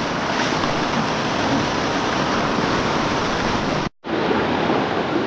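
Steady rush of flowing river water, broken by a split-second gap about four seconds in.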